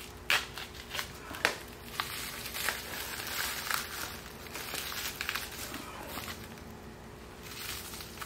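Plastic wrap crinkling and crackling as it is peeled off a new steel pin, with a few sharp crackles in the first second and a half, then a denser run of crinkling, and a short burst near the end.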